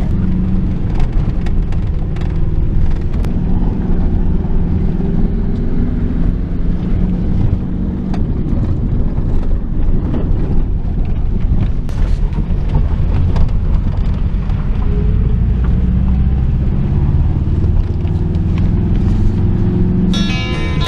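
Car driving along: steady engine and road noise, the engine note drifting up and down with speed.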